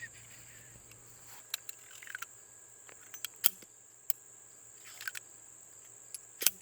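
Scattered sharp metallic clicks from a single-action .357 Magnum revolver being handled and loaded: the cylinder turning and cartridges going in, with a loud click about three and a half seconds in and another near the end. Under them, a steady high buzz of crickets or other insects.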